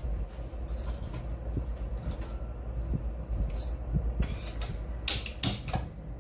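Hand-held kitchen spark lighter clicked repeatedly to light a gas stove burner: sharp clicks at uneven intervals, with a quick cluster near the end.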